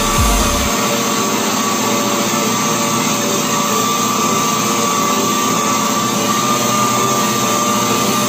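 Random orbital sander with a dust-extraction hose running steadily with a high whine, sanding a plastic car-bumper moulding.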